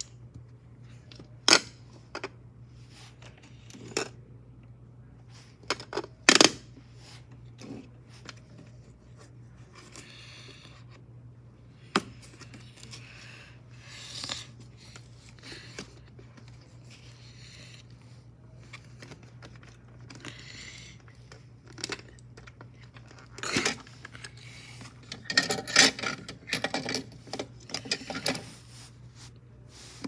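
Hands handling a plastic toy washing machine and tearing its cardboard box: scattered sharp plastic clicks and knocks with patches of cardboard rustling and tearing, and a busy run of clatter near the end. A steady low hum sits underneath.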